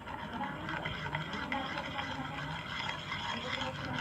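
Glue and borax activator being stirred in a plate with a pen: a steady wet scraping with many small sticky clicks.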